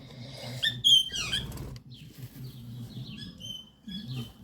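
Budgerigars cheeping and squeaking in high, short calls, loudest about a second in, then a run of quick cheeps near the end, over a steady low hum.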